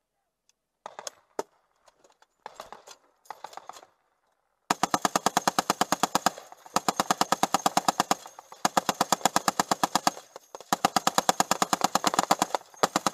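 Humvee turret-mounted machine gun firing four long bursts of automatic fire in quick succession, starting about five seconds in, each burst a rapid, even string of shots lasting under two seconds. Before the first burst there are a few scattered clicks and knocks.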